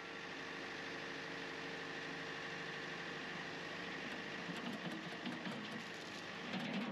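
John Deere compact tractor's diesel engine running steadily with a high whine over it, while the front loader bucket tips and dumps its load of manure. Some rough knocking in the second half, loudest just before the end.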